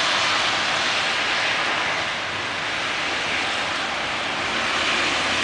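Freezing rain falling, a steady hiss.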